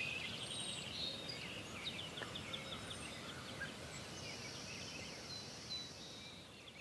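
Faint outdoor background noise with small birds chirping and trilling, slowly fading.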